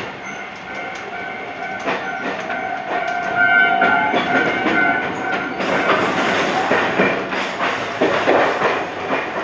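Iyotetsu 3000 series electric train running, heard from inside the front car: a steady whine with wheels clicking over rail joints. About five and a half seconds in, the wheel-on-rail noise grows louder and fuller.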